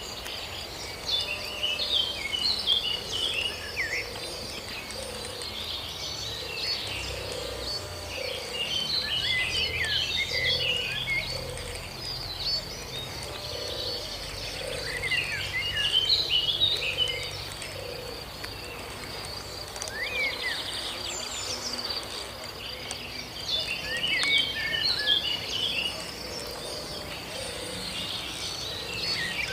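Outdoor nature sounds: birds chirping in clusters every several seconds over a steady high insect trill, with a lower call repeating about once a second.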